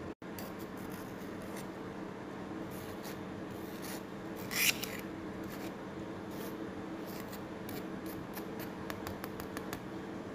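Cooked potato being pressed and scraped through a wire-mesh sieve: a run of short scratchy rubbing strokes, with one louder scrape about four and a half seconds in, over a steady background hum.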